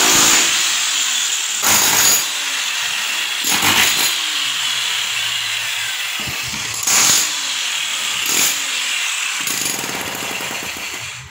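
Handheld power tool running continuously against masonry during demolition work, rising in several louder surges.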